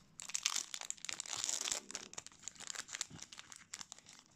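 Foil booster-pack wrapper being torn open and crinkled by hand: a dense run of crackles, loudest in the first half.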